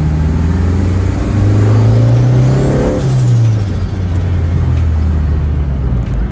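Turbocharged pickup engine accelerating, its pitch climbing with a rising turbo whistle. About three seconds in the throttle is lifted, and the engine note and the whistle both fall away before it settles to a steady run.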